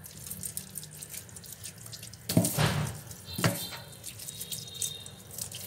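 Wet hands scrubbing raw chicken wings with salt in a stainless steel sink: squelching, crackling and splashing, with two louder splashes about halfway through.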